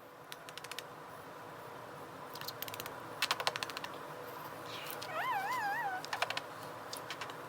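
A cat gives one short, wavering meow, just under a second long, about five seconds in. Quick runs of light clicking and tapping come before and after it.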